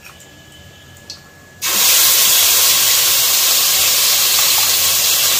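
Wet onion, tomato and green chilli paste tipped into hot oil with whole spices, setting off a loud, steady sizzle that starts suddenly about a second and a half in.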